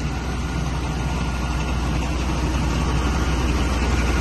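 Heavy engines running steadily with a low, even rhythm: the tractor driving the grain auger and the International Loadstar truck holding its dump box up while it unloads grain. The sound grows slightly louder toward the end.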